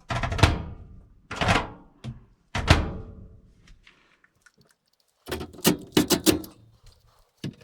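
Three heavy thunks about a second apart, each with a short ringing tail, then about five seconds in a quick run of sharp knocks and rattles, from the replacement microwave being handled and fastened into its cabinet.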